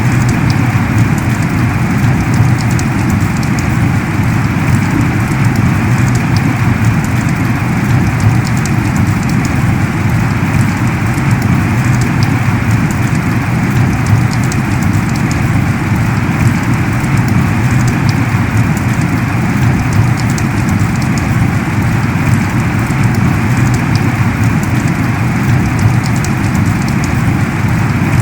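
Heavy rain falling steadily in a dense hiss, with scattered sharper drop ticks throughout.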